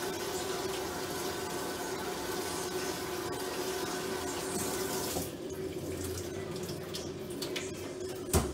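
Kitchen tap running cold water into the sink to rinse lentils, shut off about five seconds in. After it come a few light clinks and one sharp knock just before the end, the loudest sound. A steady low hum runs underneath.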